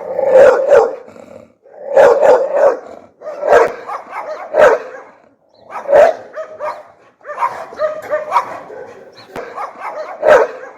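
American Bully, a pit bull-type dog, barking loudly and fiercely: a run of barks about one a second, with a longer unbroken stretch of barking a little past the middle.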